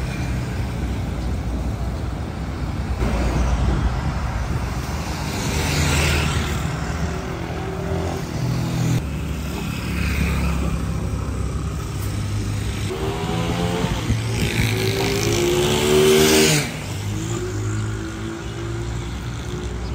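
Street traffic: motor vehicles running steadily, with vehicles passing by; the loudest, an engine rising in pitch, passes about 16 seconds in and cuts off.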